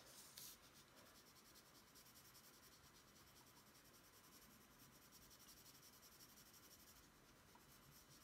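Faint, steady scratching of a colour pencil shading on paper.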